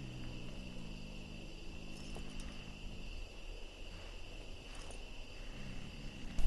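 Crickets chirping steadily in a night-time ambience, with a low, pitched drone underneath.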